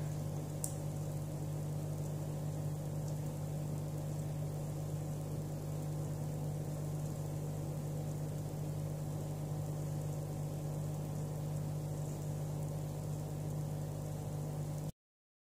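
Steady low machine hum at an even level, which cuts off suddenly near the end.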